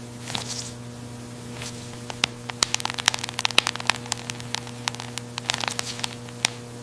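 A steady electrical-sounding hum. From about two seconds in, irregular sharp crackling clicks sound over it.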